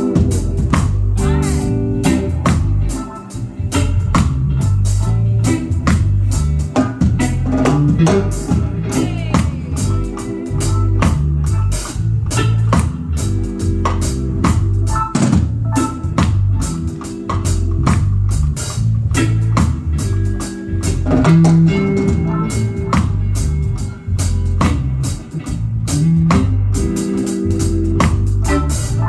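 Live band playing an instrumental groove: electric guitar over bass and drum kit.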